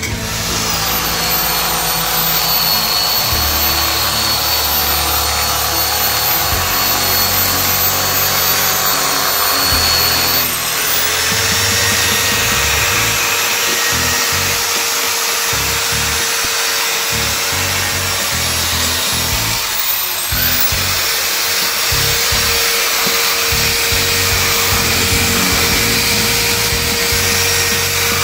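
Corded electric drill running steadily with a polishing bit inside the intake and exhaust ports of a Honda CBR250RR cylinder head, a steady whine whose speed dips briefly twice, about ten and twenty seconds in. Background music plays under it.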